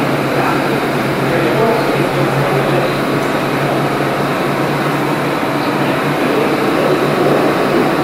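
New York City subway car standing at a platform with its doors open, its air-conditioning and auxiliary equipment running: a steady, loud rushing hum with a constant low drone underneath.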